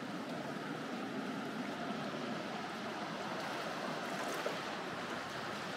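Sea surf washing steadily, an even rushing noise with no single wave standing out.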